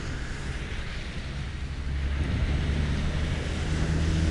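A low, steady engine hum that grows louder about two seconds in, over a hiss of wind on the microphone.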